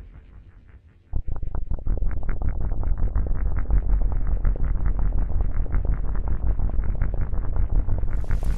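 Electronic synthesizer music. It fades out, then about a second in a new section starts with heavy bass and a steady pulse of about three beats a second, muffled at first and turning suddenly bright and hissy near the end.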